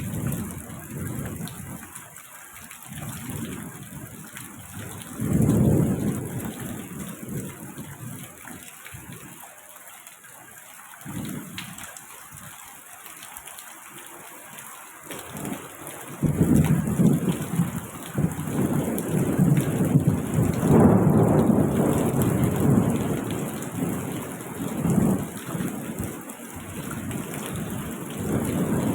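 Thunderstorm: steady rain hiss with rumbles of thunder. Short rolls come early, and a long, louder roll of thunder builds a little past halfway and lasts about ten seconds.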